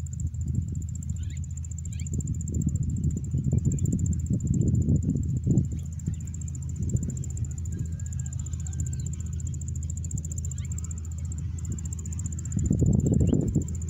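Insects chirring steadily in one high, even tone over a low, uneven rumble that swells about 13 seconds in, with a few short high chirps scattered through.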